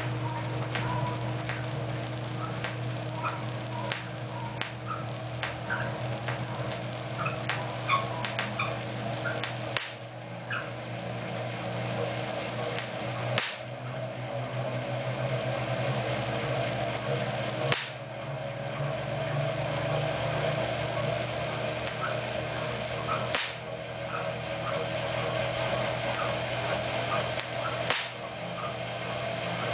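Hand-cranked Wimshurst machine running with a steady whir from its spinning disks and light ticking, while long sparks snap across the gap between its discharge spheres: five sharp cracks, one about every four to five seconds as the charge builds up again.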